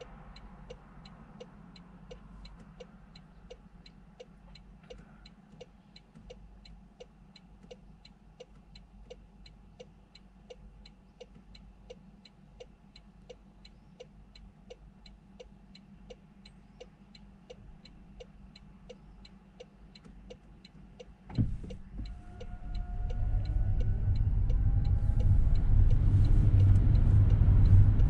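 A car's turn-signal indicator ticks steadily and rapidly inside the cabin over a faint low engine hum. About 21 seconds in there is a thump, the ticking stops, and engine and road rumble build loudly as the car gets moving.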